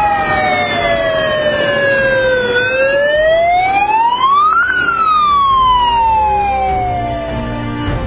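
Fire engine siren wailing: its pitch falls slowly, rises to a peak about four and a half seconds in, then falls slowly again.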